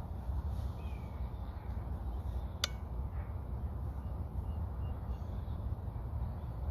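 Wind buffeting the microphone, heard as a steady low rumble, with a few faint bird chirps and one sharp click about two and a half seconds in.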